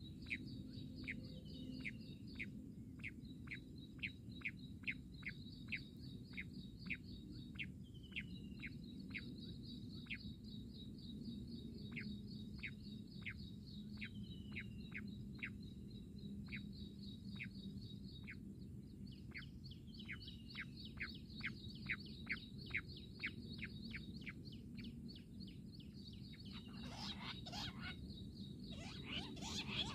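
Jungle bush quail calling: a long series of short, sharp whistled notes that each drop in pitch, about two or three a second, with an occasional longer slurred note. A rustling noise starts near the end.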